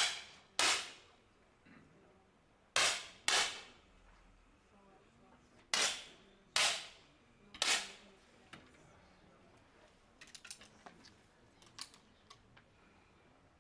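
Seven 10 m air pistol shots fired one after another by different shooters, each a sharp pop with a short echoing tail: two close together, then another pair, then three more. Near the end come a few much fainter clicks.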